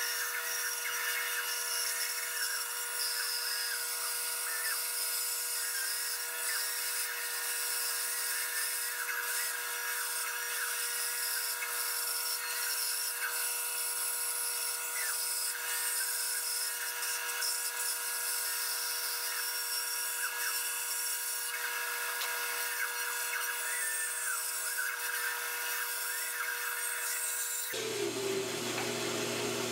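Band saw running while cutting a curved outline through a hardwood board: a steady whine with held tones and a high hiss, wavering slightly as the wood is fed into the blade. The sound changes abruptly shortly before the end.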